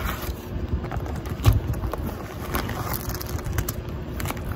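Plastic poly mailer and its wrapping crinkling and rustling as it is handled and pulled apart, over a low wind rumble on the microphone, with one sharper bump about a second and a half in.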